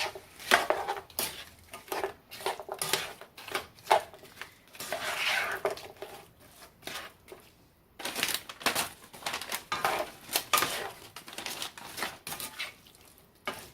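A metal utensil clinking, knocking and scraping against a skillet in irregular strokes as food is stirred over the heat, with a lull about seven seconds in.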